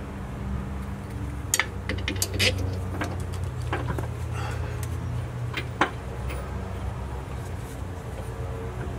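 Light metallic clinks and taps of hand tools and fittings against a car's power steering rack as it is worked on from underneath. A quick cluster of clinks comes about two seconds in and another pair near six seconds, over a steady low hum.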